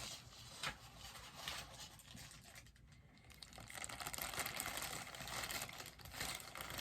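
Packing material rustling and crinkling with small scattered clicks as a boxed bobblehead is unwrapped by hand, the handling busiest in the second half.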